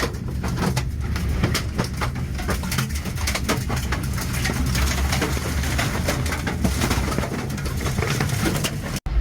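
Tornado winds passing overhead: a heavy, continuous low rumble of wind with many rapid knocks and clatters of debris striking. It cuts off abruptly near the end.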